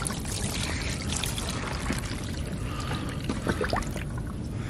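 Transmission fluid mixed with water pouring and trickling out of a tipped steel transmission pan into a plastic drain pan, with a few light knocks about three and a half seconds in.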